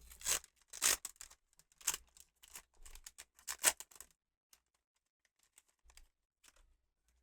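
Pokémon card booster pack being torn open: a run of sharp crinkling tears of the foil wrapper over the first four seconds, then only faint rustles.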